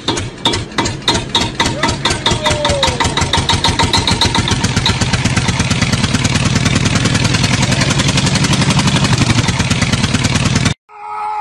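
Small engine chugging, its beat speeding up steadily from about two strokes a second to a fast putter. It cuts off suddenly near the end.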